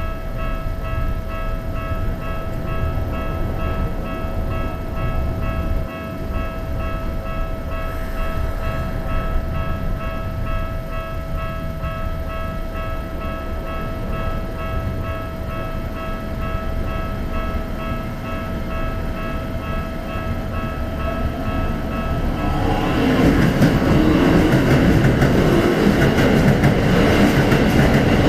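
Japanese level-crossing warning bell ringing its steady repeated electronic tone. Near the end a Keikyu Airport Line train runs through the crossing, and its running noise and wheel clatter build up to the loudest part.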